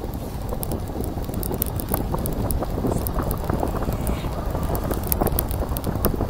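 Wind rumbling on the microphone of a camera carried on a moving bicycle, with many short, irregular light clicks and rattles over it.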